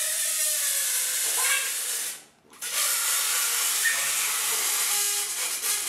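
Air hissing out of the neck of an inflated rubber balloon as it is let down. The hiss stops abruptly about two seconds in, then starts again.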